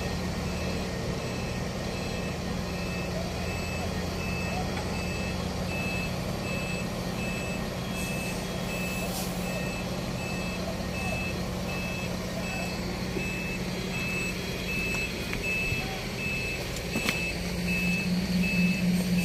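Reverse/motion warning alarm of heavy construction machinery beeping steadily over a diesel engine running; the engine grows louder near the end.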